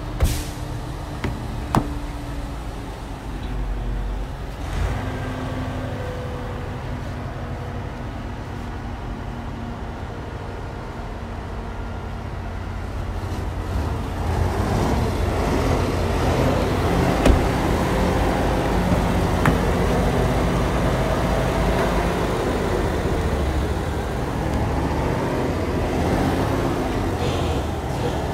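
Vehicle engine running steadily amid road traffic noise, getting louder about halfway through, with a few sharp clicks near the start.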